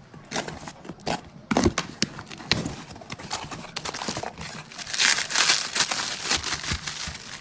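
Quick clicks, taps and crinkling from hands and small tools working on an iPhone 5 during repair, with a longer hissing, scraping stretch about five seconds in.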